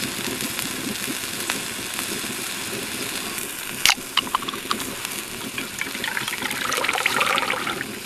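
An aluminium energy-drink can (Red Bull) is cracked open with one sharp pop about four seconds in. Near the end the drink is poured into a stainless steel camping cup, splashing and fizzing, over a steady background hiss.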